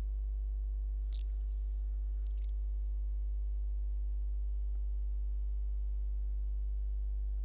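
Steady low electrical hum with a buzzy stack of overtones, from the recording setup. Two faint short hisses about one and two and a half seconds in.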